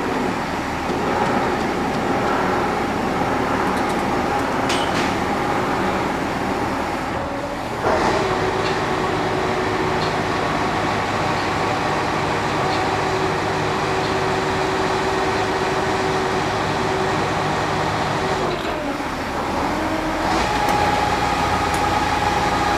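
Engine of heavy machinery running steadily under varying load, its pitch shifting abruptly about eight seconds in and dipping then rising again near the end.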